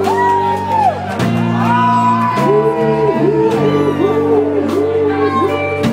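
Live rock band playing loud and amplified: electric guitar and bass over drums with regular cymbal hits. Held notes bend in pitch, and from about halfway a short rising-and-falling phrase repeats about every half second.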